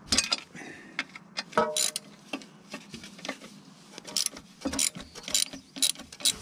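Socket ratchet clicking in short runs, with metal clinks of the tool on the nut, as a torque converter-to-flywheel nut is backed off. One clink about a second and a half in rings briefly, and the clicks come quicker in the last couple of seconds.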